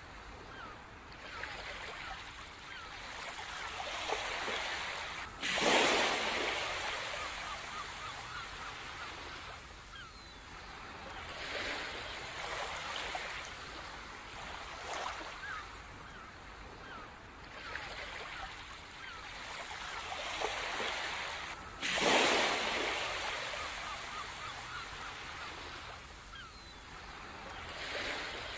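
Ocean surf washing onto a beach: a hiss that swells and fades, with two bigger waves breaking sharply, about five and a half seconds in and again about twenty-two seconds in, each dying away over a few seconds.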